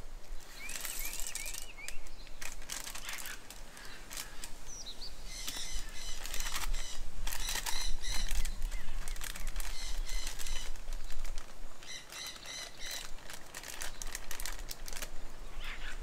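Birds calling and singing: a quick run of rising-and-falling whistled notes near the start, then chirping trills twice later on. Frequent sharp clicks and taps run underneath.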